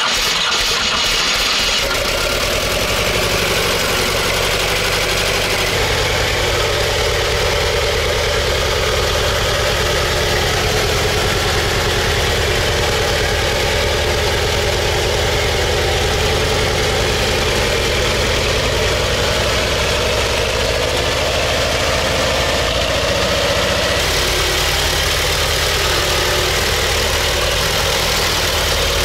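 Diesel engine of a T-40AM tractor running loudly, its note shifting a couple of times.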